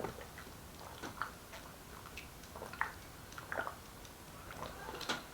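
Faint chewing by a person close to the microphone, with irregular small mouth clicks.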